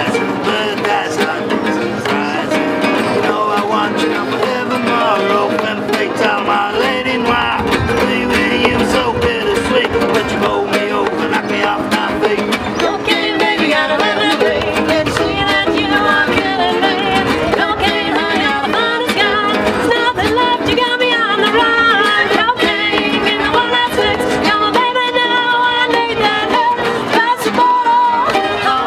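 Live acoustic folk band playing a lively tune: fiddle over strummed acoustic guitars and a small plucked string instrument, with cajón beats keeping the rhythm.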